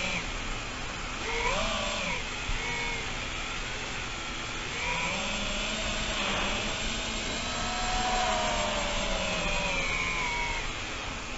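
FPV quadcopter's electric motors and propellers whining, the pitch rising and falling as the throttle changes, over a steady rush of wind and propeller noise.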